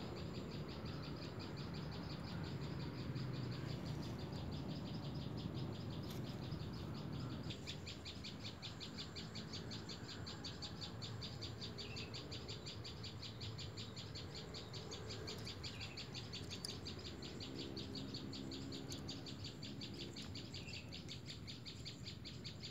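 Faint outdoor chirping: a steady, rapid, high-pitched pulsing that keeps going, with a few faint single chirps over it. A low rumble eases off about seven seconds in.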